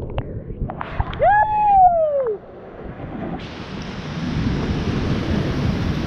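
Whitewater heard from a kayaker's GoPro plunging through a waterfall drop: first a muffled rumble with a few clicks and a brief tone that rises then falls, as the camera is buried in the foam. About three and a half seconds in, the rushing hiss of the rapid comes through clearly as the camera clears the water.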